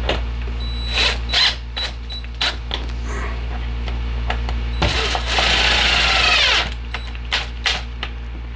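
Power drill driving a screw into a pine strip, running for about a second and a half about five seconds in, with its pitch sagging under load. Before it come scattered clicks and knocks of handling the screw and parts, over a steady low hum.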